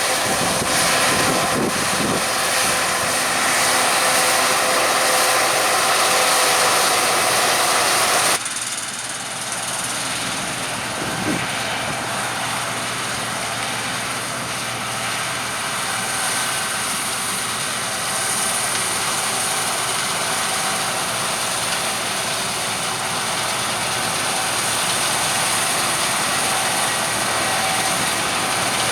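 Harvest machinery running steadily: the engines and threshing noise of a combine harvester and tractors working a wheat field. About eight seconds in the sound changes abruptly and becomes a little quieter.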